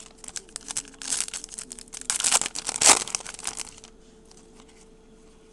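Crinkling and rustling of a trading-card pack wrapper and cards being handled, in clusters of crackles that are busiest in the middle seconds and then die away.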